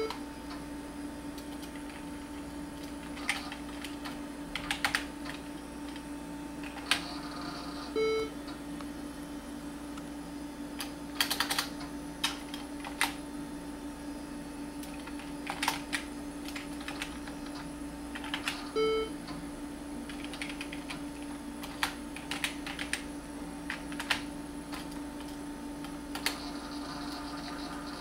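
Computer keyboard of a MacIvory Lisp machine being typed on: scattered key clicks, singly and in short runs. The machine gives a short beep twice, about 8 and 19 seconds in, over a steady low hum.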